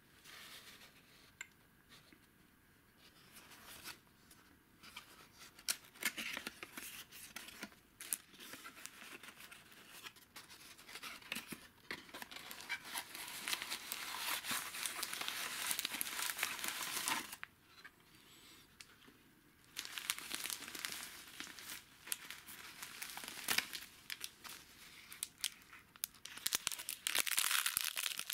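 Crinkling and rustling of an old cardboard tube box being opened, then of the brittle clear wrapping around a vacuum tube being handled, with many small crackles. It comes in bursts, with a short lull about two-thirds through and the loudest crinkling near the end.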